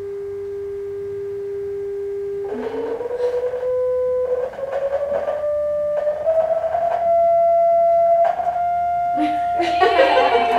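A pure sine tone generated in GeoGebra and played through speakers. It holds one mid pitch for about two and a half seconds, then rises in small steps to a clearly higher pitch as the frequency slider is moved, and holds there.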